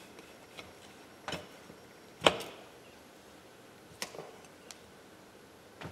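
A few scattered sharp metallic clicks and taps as an 11/16 wrench works a fuel line fitting tight on a Volvo Penta fuel pump, the loudest about two seconds in.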